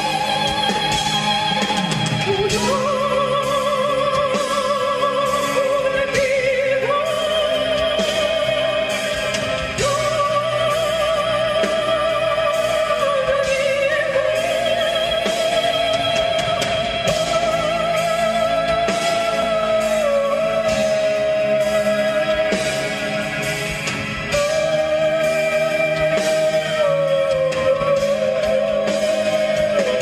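A high male voice singing a slow ballad, holding long notes with a wide vibrato over instrumental accompaniment, with brief breaths between phrases.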